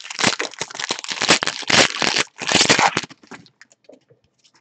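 Wrapper of a sealed baseball card pack being torn open and crinkled: dense, loud crackling for about three seconds, then a few faint rustles and clicks as the cards come out.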